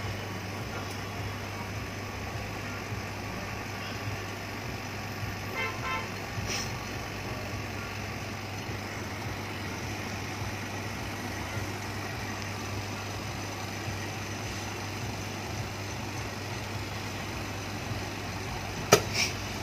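OCA vacuum laminating machine running its laminating cycle with a steady motor hum. A sharp click comes near the end.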